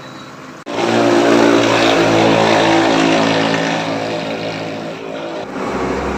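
A car engine running steadily with a constant droning pitch, starting abruptly about a second in and dropping to a lower hum near the end.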